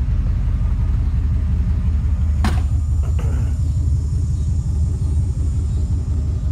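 Steady low rumble of a truck running, heard from inside the cab, with one sharp click about two and a half seconds in.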